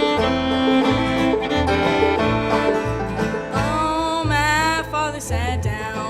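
Traditional bluegrass band playing live, led by banjo picking over a pulsing bass line; a voice starts singing about halfway through.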